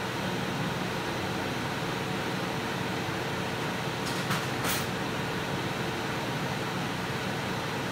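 Steady rushing noise with a faint steady hum underneath; a little past four seconds in, two short sharp crackles from the small burning wooden crib.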